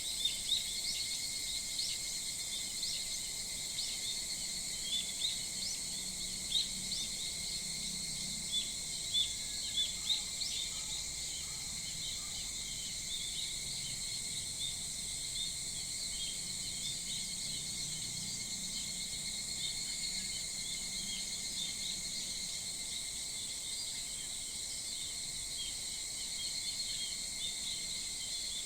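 Small birds chirping in many short, quick calls over a steady, high insect drone; the chirping is busiest in the first half and thins out later.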